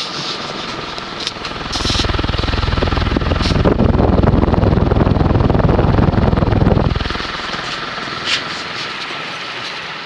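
Dayton 36-inch industrial ceiling fan with a stamped-steel motor running on high speed, with a steady high-pitched motor hum. From about two seconds in to about seven seconds, the air thrown by the blades buffets the microphone as it comes in close under the fan, giving a loud, rapidly pulsing rumble.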